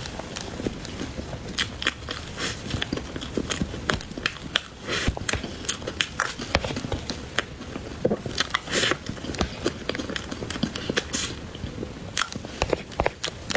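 Close-miked eating sounds: biting and chewing cake, with many irregular wet mouth clicks and crackles.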